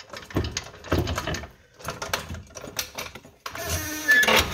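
Metal clunks and rattles from the front suspension of a 1983 Buick Regal, its steering knuckle and lower control arm, as the arm is let down on a floor jack. Near the end comes a louder metal scraping creak.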